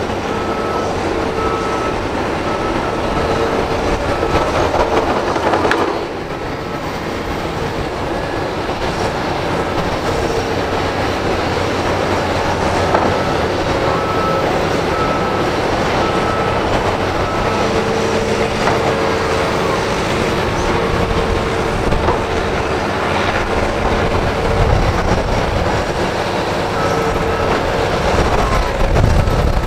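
Kobelco SK200 crawler excavator's diesel engine and hydraulics running under load while digging and loading dirt, with a steady whine that comes and goes. The loudness dips briefly around six seconds in, and there is a low thump near the end.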